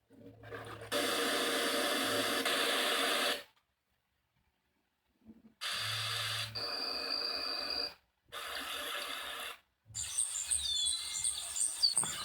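A string of short nature-ambience sound-effect previews, each starting and cutting off abruptly with silent gaps between them. A steady rushing outdoor ambience comes first, and near the end birds are chirping.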